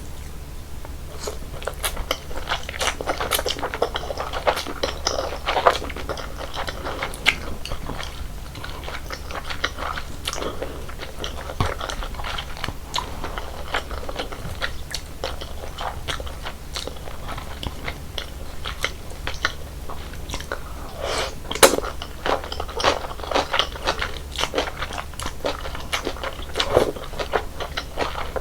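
Close-miked chewing and crunching of cold naengmyeon noodles in a slushy iced broth, a dense run of irregular crackles and bites, over a steady low hum.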